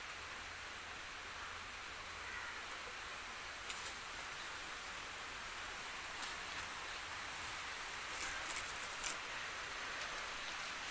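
A steady hiss with a few scattered light clicks and taps, the sharpest about nine seconds in.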